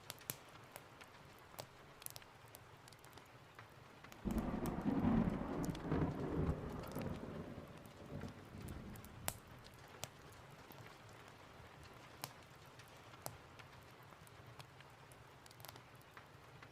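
Steady rain with a thunderclap that breaks suddenly about four seconds in, rumbles loudest for a few seconds and dies away over about five seconds. Scattered sharp crackles and clicks sound throughout.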